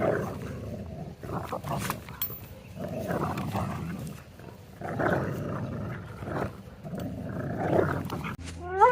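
Puppies growling and snarling in a string of rough bursts during play-fighting, with a short high yelp near the end.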